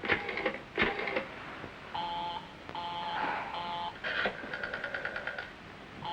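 Telephone handset clicks, then a telephone line tone beeping on and off in pulses of about half a second, with a brief buzzier tone partway through.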